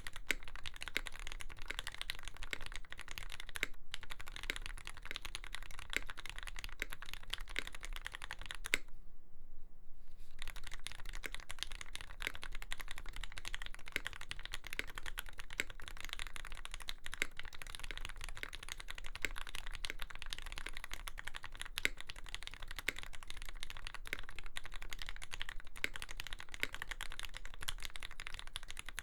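Continuous typing on a Lyn Dolphin V3 custom mechanical keyboard with an aluminium plate, lubed Gateron Fei switches with black Cherry tops and GMK keycaps. It is a rapid, uneven run of keystroke clacks, with a pause of about a second and a half starting about nine seconds in.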